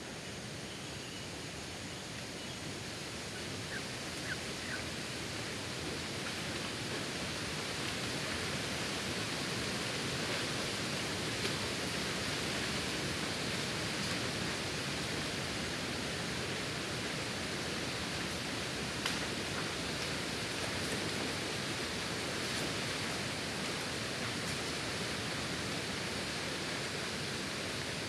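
Steady hiss, a little louder after the first several seconds, with a few faint ticks.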